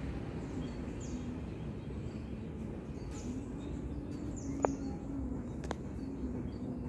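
Outdoor ambience: a steady low background rumble with small birds chirping now and then in short, high, falling calls. A single sharp click stands out as the loudest sound about midway, with a fainter one a second later.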